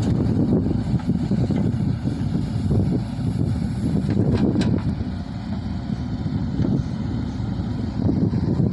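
Diesel engine of a JCB backhoe loader running steadily, with wind buffeting the microphone. It eases off slightly in the middle.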